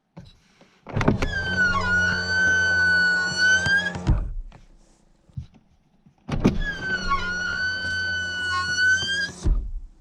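Toyota Corolla Ceres power window run twice, each pass about three seconds of motor hum under a loud, steady, high squeal from the glass and ending in a thump as it stops. The owner blames the squeal on dirt built up in the door.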